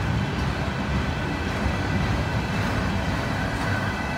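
Empty steel coil cars of a freight train rolling past: a steady rumble and clatter of wheels on the rails.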